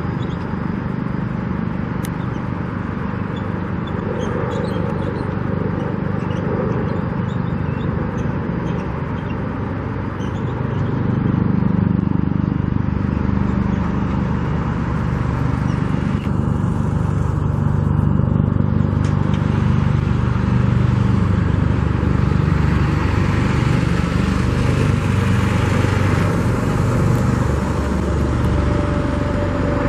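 Steady outdoor traffic noise, with engines humming low; it gets louder about ten seconds in and stays up.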